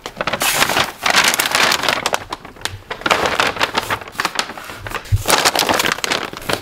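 Brown paper grocery bags rustling and crinkling as they are handled and carried, with a dull thump a little over five seconds in.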